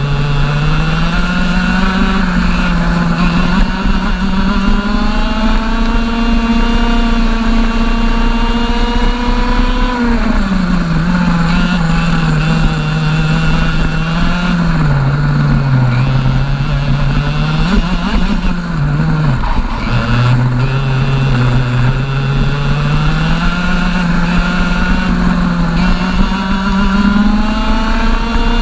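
Onboard sound of a 125cc two-stroke TAG racing kart engine at race pace. The revs climb and hold high, drop sharply about ten seconds in, dip twice more through the middle, then climb again toward the end.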